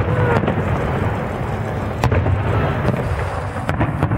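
Fireworks display: aerial shells bursting with several sharp bangs over a constant low rumble.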